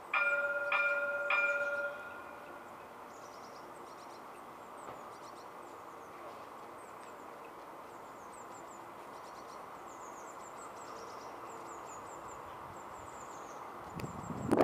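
Alstom Citadis tram's warning chime struck three times, ringing for about two seconds before it stops. After it, a steady hum of the tram and street with small birds chirping.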